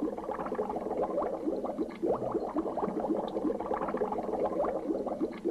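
Cartoon bubbling-water sound effect: a dense, continuous stream of short bubbling pops.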